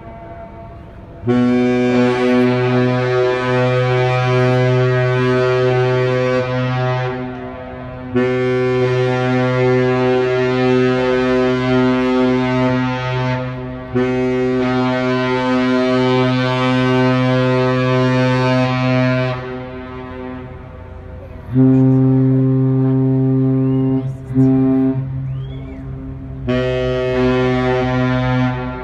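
Cruise ship Regal Princess's horn sounding a series of deep, sustained blasts, several pitches at once like a chord, as the ship departs port. There are three long blasts of about five seconds each, then three shorter ones near the end.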